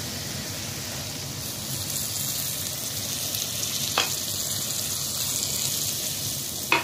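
Tomato, onion and pepper sauce sizzling in a clay tagine as a little water is added, the sizzle growing stronger about two seconds in. A sharp tap sounds about four seconds in and again near the end.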